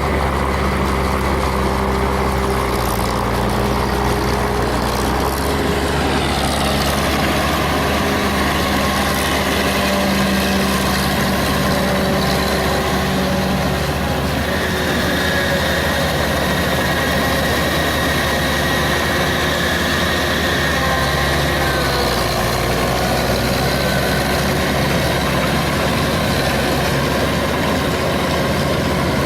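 Engine of a paddy-field ploughing machine running steadily, its pitch shifting a few times.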